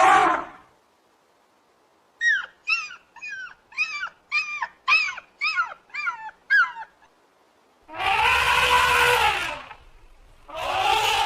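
A canine yelping: a quick run of about ten short, high yelps, each falling in pitch, then two longer, louder calls near the end.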